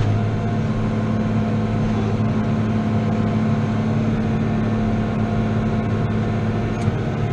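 New Holland T7.210 tractor's six-cylinder diesel engine running steadily under load, pulling a five-furrow plough, heard from inside the cab.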